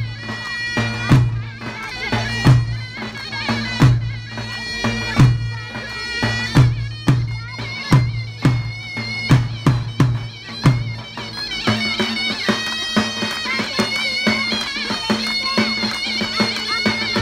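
Davul and zurna playing a halay tune: the zurna's held melody runs over heavy davul beats. The beats quicken past the middle and drop out about two-thirds of the way through, leaving the zurna over light drumming.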